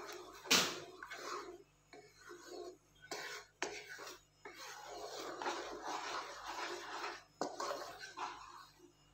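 Wooden spoon stirring thick custard in a two-handled kadai: irregular wet scraping strokes, with a few sharp knocks of the spoon against the pan.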